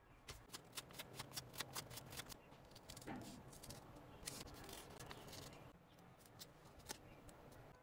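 Faint snips of small scissors cutting through a stack of folded paper, with light paper handling. Sharp clicks come quickly for the first two seconds or so, then only now and then.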